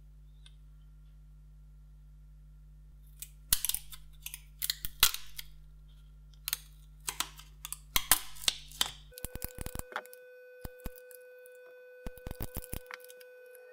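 Hands handling cylindrical lithium-ion battery cells and a film wrapper: rustling, taps and sharp clicks in irregular bursts, starting about three seconds in.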